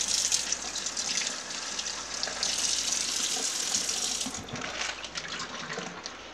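Kitchen faucet running into a stainless steel sink as raw chicken is rinsed under the stream. The rush of water drops off about four seconds in, leaving lighter splashing and a few knocks.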